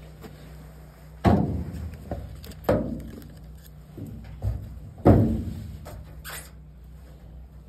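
Cut wooden pieces knocked and set down on a metal-topped table: three loud knocks, each dying away briefly, with a softer one between the last two.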